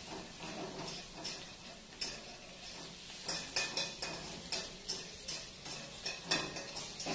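Metal spatula scraping and clinking against a wok while stirring food over a gas flame: a run of irregular sharp clinks, several a second.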